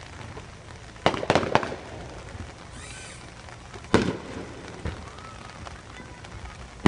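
Aerial fireworks bursting in the sky: a quick run of three bangs about a second in, a single loud bang near four seconds, and a fainter one about a second after it.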